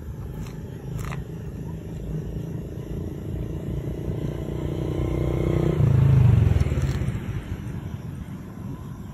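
A passing motor vehicle's engine: a low rumble that builds, is loudest about six seconds in, then fades away.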